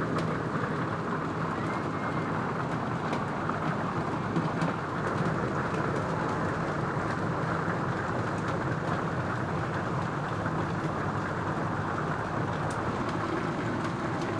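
Heavy rain pouring down steadily, an even hiss with a few sharper drip hits.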